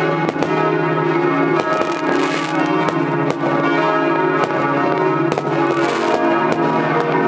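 Several church bells pealing together to ring in the New Year, with firework bangs and crackles going off throughout.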